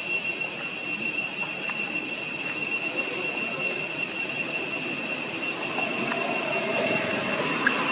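Cicadas droning in the forest: a steady, high-pitched chorus that holds an even level throughout.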